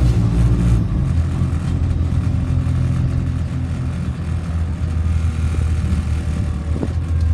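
The diesel engine of an Enviro400 double-decker bus, a converted diesel, heard from inside the lower deck as it drives: a steady, loud low drone whose note shifts about a second in.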